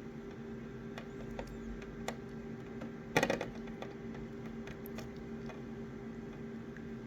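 Photocopier running with a steady hum, scattered light clicks, and a short clattering rattle about three seconds in.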